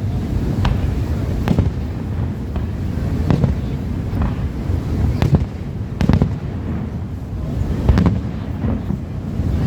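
Fireworks display: around ten aerial shell bangs at uneven intervals, roughly a second apart, over a steady low rumble.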